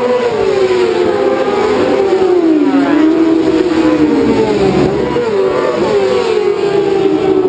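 Racing motorcycles passing close at speed, engines revving hard; the pitch sinks to a low point about two and a half seconds in, then climbs again as the bikes pull away.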